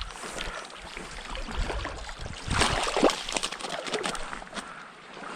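Flowing river water with splashing from a hooked trout thrashing at the surface as it is brought to the net, loudest about two and a half to three seconds in.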